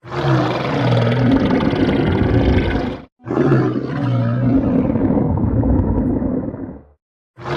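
Stomach growling: a loud, low, rumbling growl that breaks off suddenly into silence about three seconds in, then starts again the same way and cuts off once more near the end.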